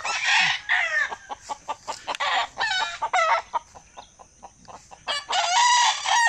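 Gamecock roosters crowing, with clucking in between; the longest crow comes near the end.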